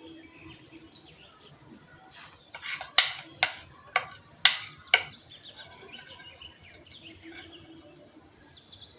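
Five sharp knocks roughly half a second apart about three seconds in, the loudest sound. After them a bird chirps a fast run of high notes that slide down in pitch.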